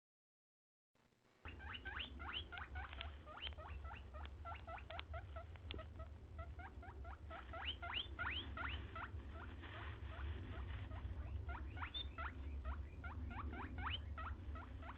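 A small animal giving a rapid run of short, high, rising squeaky chirps, several a second, over a low hum; it starts about a second in.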